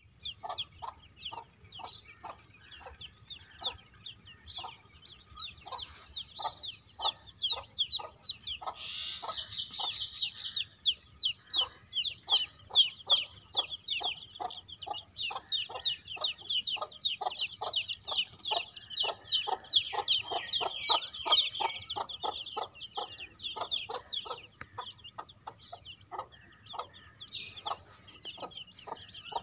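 A brood of chicks peeping constantly in a high, busy chorus, louder for a moment about a third of the way in, while a mother hen clucks steadily about twice a second.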